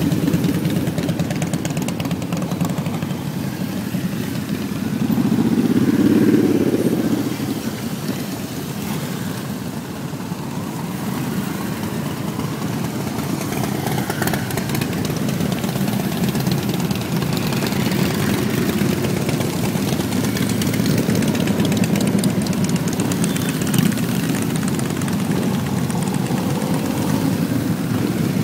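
Continuous vehicle engine rumble, louder for a couple of seconds about six seconds in.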